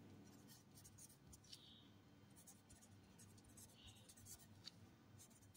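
Faint scratching of handwriting: short, irregular pen strokes, a few soft ticks scattered through, over a low room hum.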